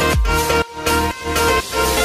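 Background electronic dance music with a steady kick-drum beat, about two beats a second, and sustained synth chords; the beat drops out briefly a little over half a second in.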